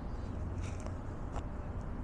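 Steady low outdoor rumble, with a few light crunching footsteps, one about a third of the way in and another past halfway.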